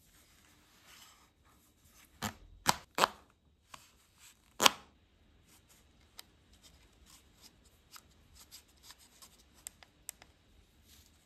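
Plastic parts of a Razer Barracuda X wireless headset and its USB-C dongle being handled with gloved hands: four sharp clicks in the first five seconds, the last the loudest, then a run of lighter clicks and ticks with soft rubbing as the headset is turned over and its controls are touched.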